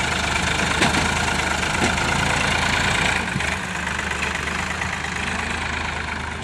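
Sonalika DI 750 tractor's diesel engine running steadily under load as it hauls a trolley heaped with soil, its sound easing off a little about halfway through as it moves away.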